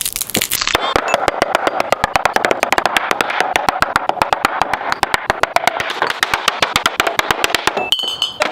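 Glass bottles landing and clanking on hard surfaces, one after another in quick succession, several hits a second, with a louder crash of noise at the start.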